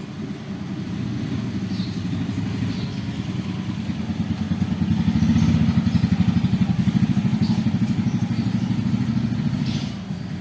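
An engine running steadily with a fast, low, even pulsing that grows louder through the middle and eases off near the end.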